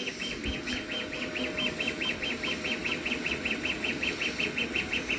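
CoreXY 3D printer's stepper motors singing as the print head runs fast back-and-forth moves at 354 mm/s: a regular train of short high-pitched chirps, about five a second, over a faint steady hum.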